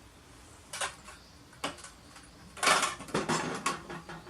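Metal clinks and rattles of a 12 mm wrench being fitted to and worked on a Honda FG201 mini tiller's oil drain bolt. There are a couple of single clicks, then a denser run of clinks past the middle.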